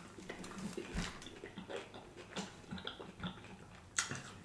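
Close-up chewing of crispy fried chicken wing, with irregular wet mouth clicks and smacks and a sharper smack near the end as another piece goes into the mouth.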